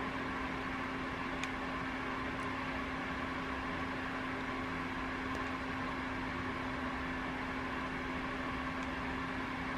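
Steady electrical hum with a constant low tone over an even room noise, with a few faint clicks.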